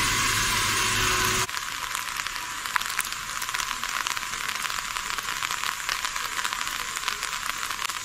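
Heavy rain falling: a dense hiss of drops with many fine crackles. Before it, a louder sound with a low rumble cuts off suddenly about a second and a half in.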